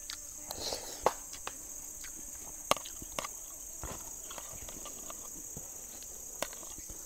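Steady high-pitched drone of forest insects, with scattered sharp clicks of a spoon against a plate and footsteps on dry leaf litter.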